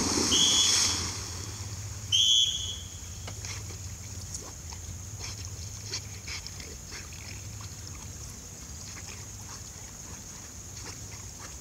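A yellow Labrador retriever leaps into a pond with a big splash, followed by two short, shrill blasts of a dog-training whistle, about half a second and about two seconds in. The dog then swims on quietly.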